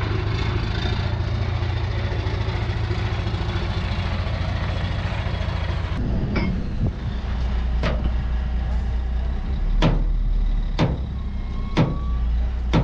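Heavy diesel truck engine running at idle, a steady low hum. In the second half a series of sharp knocks comes about once a second.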